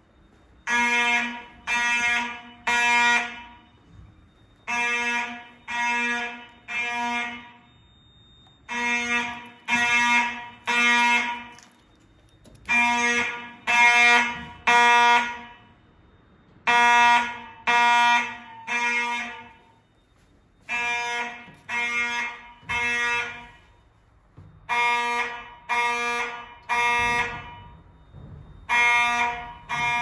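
FCI mechanical fire alarm horns sounding the temporal-3 evacuation signal: three short blasts of a steady pitched tone, then a pause, the group repeating about every four seconds.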